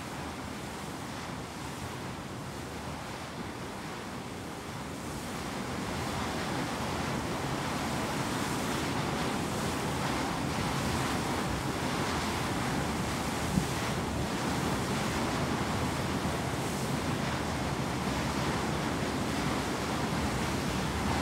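Wind and sea water rushing past a moving Hurtigruten coastal ship, with wind on the microphone. The steady rush grows louder about six seconds in, and there is one short knock about halfway through.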